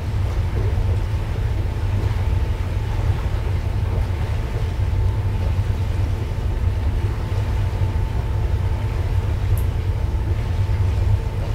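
Steady low rumble of the expedition ship MV Sea Venture's engines and machinery as she cruises slowly, with a steady hum tone riding on top.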